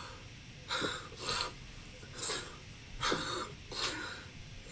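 A man crying hard: about five gasping, breathy sobs.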